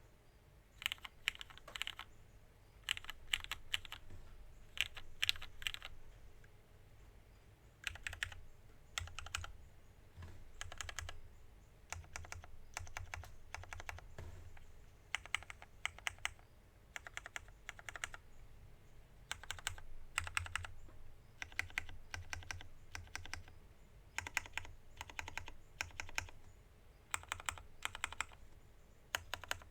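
Typing on a KMG TKL mechanical keyboard with lubed, filmed Hyperglide Black linear switches on an aluminium plate and JTK Emerald keycaps: rapid key clacks in short bursts with brief pauses between them.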